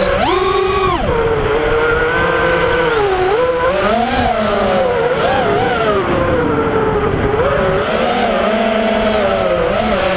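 FPV quadcopter's electric motors and propellers whining, the pitch rising and falling constantly with the throttle, with a sharp surge and drop about half a second in.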